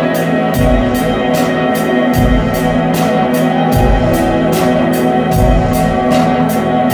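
Live rock band playing: electric guitar, bass guitar and drum kit, with a steady cymbal beat over held guitar notes and a low drum or bass thump every second and a half or so.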